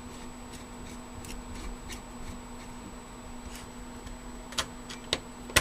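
Screwdriver tightening the spring-loaded mounting screws of a CPU cooler into a back plate: faint scattered ticks and clicks, with a few sharper clicks near the end, over a faint steady hum.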